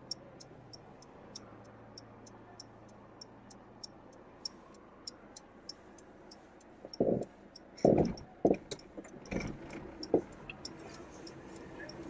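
Steady clicking of a car's turn-signal relay, about four clicks a second, heard from inside the car. In the second half a few louder short knocks and bursts of noise come over it.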